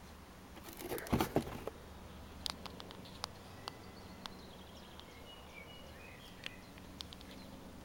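Brief scraping and rustling with a few knocks about a second in, from handling resin-and-metal orgonite pucks on concrete paving. Then scattered faint clicks, and a few short high bird chirps near the middle and toward the end.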